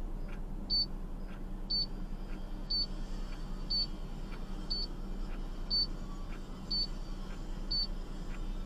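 Vehicle warning chime: a short, high-pitched electronic beep repeating evenly about once a second, over a steady low hum inside the car.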